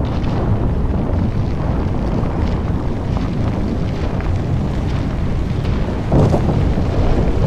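Deep, steady rumble of a high-rise tower collapsing after an explosive implosion, mixed with wind buffeting the microphone; the rumble swells about six seconds in.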